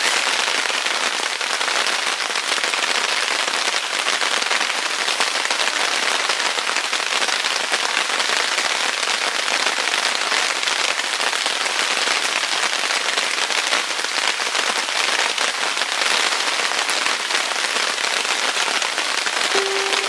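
Heavy rain falling steadily, a dense crackle of drops hitting a surface close to the microphone.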